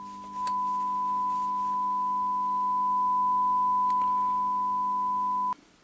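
A steady 1 kHz sine-wave test tone played through the Hitachi HA-270 stereo amplifier's right channel, over a low hum. The tone steps up in loudness about half a second in, and the tone and hum both cut off suddenly near the end.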